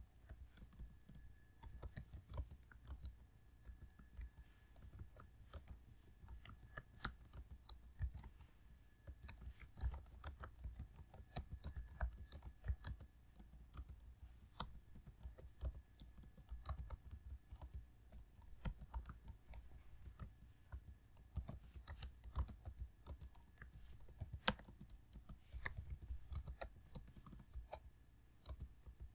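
Computer keyboard typing at a steady touch-typing pace, several keystrokes a second with brief pauses, during a timed one-minute typing test.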